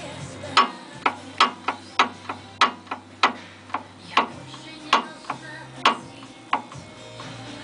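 Knocking in a car's steering: repeated sharp knocks, irregular at about two a second, over a low steady hum. The knocks are the steering fault itself.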